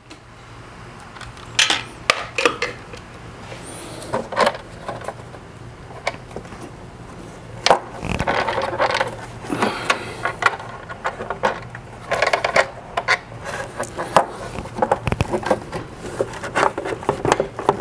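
Hand-tool work on a Jeep Wrangler's 2.0 turbo engine bay: a 10 mm tool and the engine cover give irregular clicks, knocks and short scrapes as the cover's fasteners are undone and the cover is worked loose.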